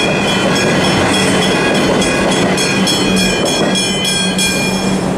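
Comeng electric suburban train passing at speed through the level crossing, its wheels clattering over the rail joints, until it clears about four seconds in. Under it the crossing's warning bells ring steadily.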